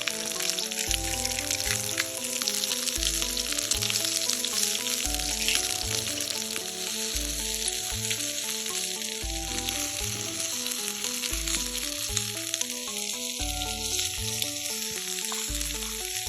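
Food sizzling and crackling as it fries in a pan, under background music with a regular bass line.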